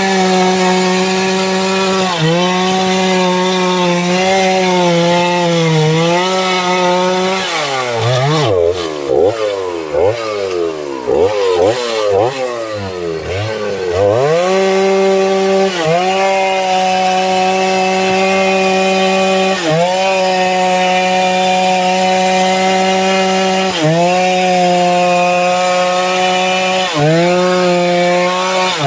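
Stihl two-stroke chainsaw cutting through a felled mahogany log, its engine held at a steady high pitch under load with brief dips. In the middle it comes out of the wood and is revved up and down rapidly several times before going back into the cut.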